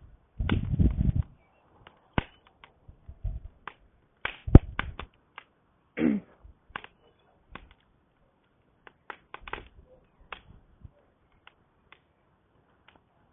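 Wood campfire crackling, with irregular sharp pops at uneven intervals, the loudest about four and a half seconds in. A short low rumble comes about half a second in.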